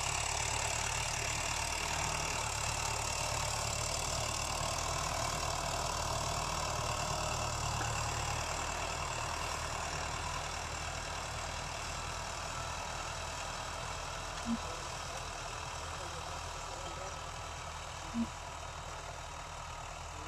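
StrongBull 90 hp tractor's diesel engine running steadily under load while it pulls a 24-disc harrow through the soil, growing gradually fainter as it moves away. Two short low blips come in the second half.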